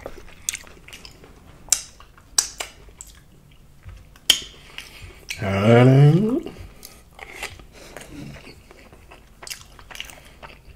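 Close-miked eating: scattered crunches and mouth smacks of chewing, with a spoon clicking against a glass bowl of jambalaya. About five seconds in comes a drawn-out humming "mmm" that rises in pitch for over a second, the loudest sound.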